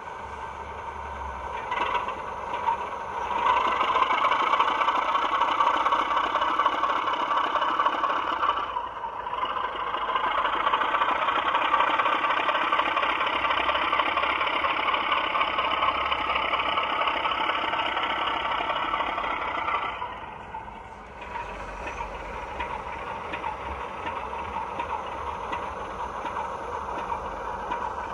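Recorded British Rail Class 33 diesel engine sound played by a model locomotive's sound decoder through a small on-board speaker. The engine sound builds over the first few seconds and runs loud with a brief dip, then settles to a quieter steady running about 20 seconds in.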